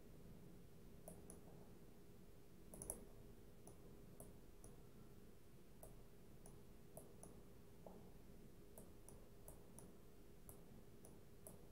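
Faint, irregular clicking of a computer mouse button, scattered through the span, with a louder click about three seconds in, over a faint steady hum.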